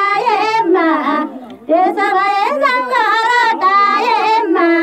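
Women singing a Nepali lok dohori folk song into a handheld microphone, in high voices, with a short break for breath about a second and a half in.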